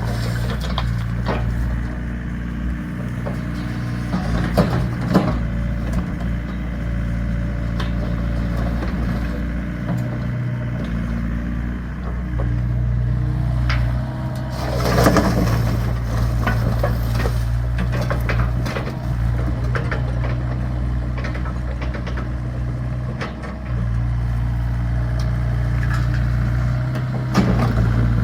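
Excavator engine running steadily under load, with scattered knocks, rattles and scraping as the bucket works the ground and debris, and a louder crunching scrape about halfway through.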